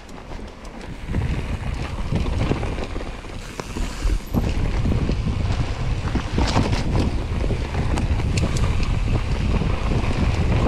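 Mountain bike descending a rough trail: wind buffeting the microphone, over tyre noise and the rattle and clatter of the bike on the rocky ground. It builds up about a second in and is louder from about four seconds in.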